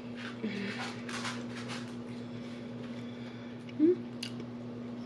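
Close-miked eating sounds from a mouthful of meatloaf: wet mouth clicks and smacks in the first two seconds, then a short rising "mm" hum a little before four seconds in, the loudest moment. A steady low hum runs underneath.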